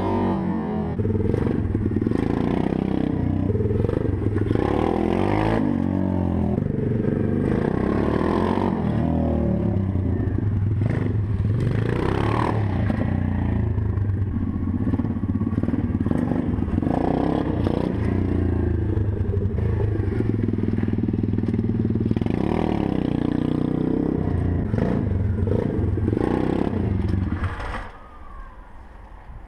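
A 125cc single-cylinder four-stroke pit bike engine revving and running as the bike is ridden for wheelies, its pitch repeatedly rising and falling. The sound drops away sharply near the end.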